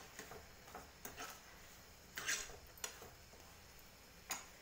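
Metal spoon scraping and tapping against a non-stick pan while stirring diced mango in sugar, a few separate scrapes and clicks, the loudest about two seconds in.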